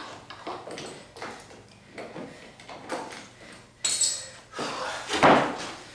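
Handling noises from a tape measure being worked along plywood strips on a concrete floor: scattered small clicks and rubs, a sharper click near four seconds, and a louder bump just after five seconds.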